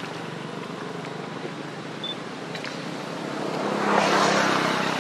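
A motor vehicle's engine running steadily in the background, rising to a louder rushing swell about four seconds in as it comes closer.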